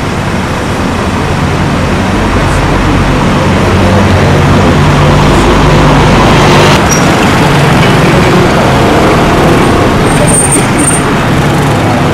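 Loud street traffic noise: vehicle engines running with a low hum under a steady rush. Two short high squeaks come near the end.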